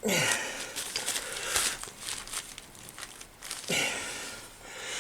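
Vice grips turning a threaded pipe fitting into an air horn: rough scraping and creaking of metal on metal, with a sharp falling creak at the start and another a little under four seconds in.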